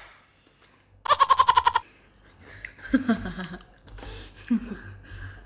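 A short, rapid, high-pitched giggle about a second in, a quick run of about eight 'ha' pulses, followed by faint low voices.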